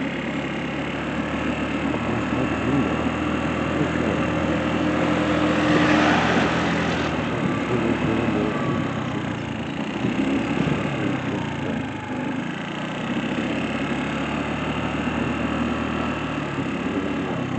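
Car engine running with a steady low hum and road noise, rising to a louder rushing swell about six seconds in that cuts off a second later.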